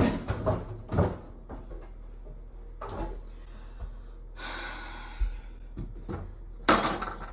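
Kitchen cupboard doors and drawers being opened and shut during a search for a hand mixer: scattered knocks and clacks, a longer sliding rush about halfway through, and a loud short burst near the end.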